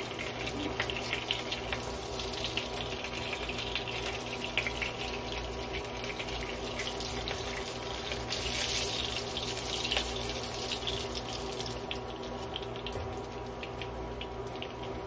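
Lumpia Shanghai (pork-and-shrimp spring rolls) frying in hot oil in a wok: a steady sizzle full of fine crackles, with now and then a sharper tick of metal tongs as the rolls are turned.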